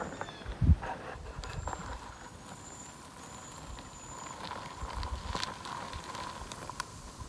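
Hot water poured from a titanium mug into a foil freeze-dried meal pouch, with handling knocks and clicks; a single thump about a second in is the loudest sound.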